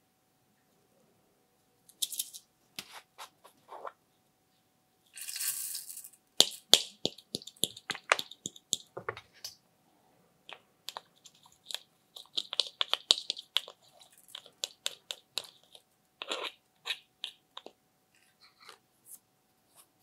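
Close-up handling sounds: sharp clicks, taps and scrapes of a metal spatula and plastic cosmetic containers against a glass baking dish as glitter is scraped out of a jar. A short rustle comes about five seconds in, then a quick run of clicks.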